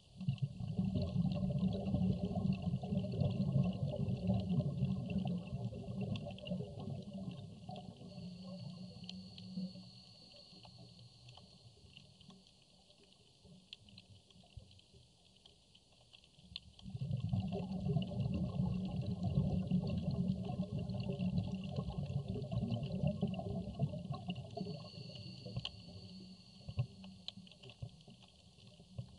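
Underwater sound over a coral reef: a low bubbling rumble for the first ten seconds or so, which fades and comes back about seventeen seconds in, over faint steady crackling.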